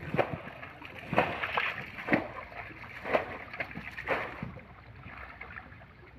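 Sloshes and splashes in shallow, muddy water, about once a second, from wading and working a hand fishing net through it. They die down after about four and a half seconds.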